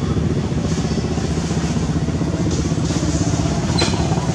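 A small engine running steadily at an even, rapid beat, with one sharp click near the end.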